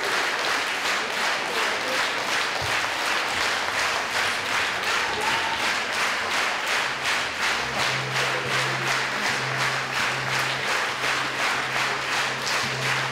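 Concert-hall audience applauding an orchestra, the clapping falling into an even rhythm of about three claps a second.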